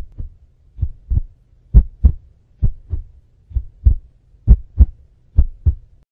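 Heartbeat sound effect for suspense: seven deep lub-dub double thumps, a little under one a second, that stop just before the end.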